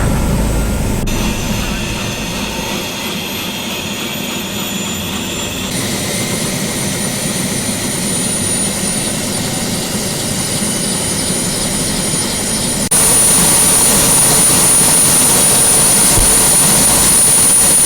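Helicopter turbine engine running: a steady rush of engine and rotor noise with a high, steady whine, in several cut-together stretches that grow louder about two-thirds of the way through.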